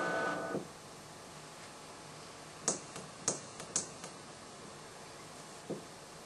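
A steady hum fades out about half a second in, leaving quiet room tone with about five sharp, short clicks.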